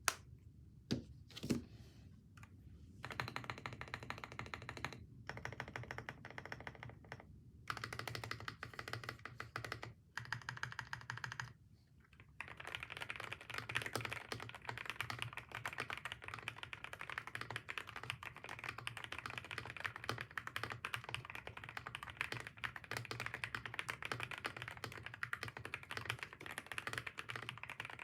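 Typing on a Sugar65 65% mechanical keyboard. A few single key taps come first, then short bursts of typing, then steady fast typing from a little under halfway on.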